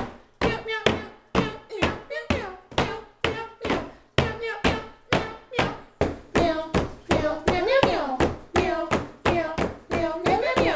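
Hands slapping a cloth-covered table in a steady beat, about two slaps a second, with voices chanting along that get louder from about halfway.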